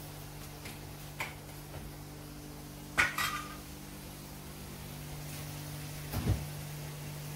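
Metal kitchenware clattering against a cooking pot: a few light clicks, then a sharp knock with a short ring about three seconds in, and a low thump near the end, over a steady low hum.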